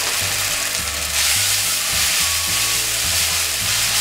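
Freshly drained egg noodles sizzling in hot oil in a nonstick frying pan, the sizzle growing louder about a second in as they are tossed with a slotted spatula.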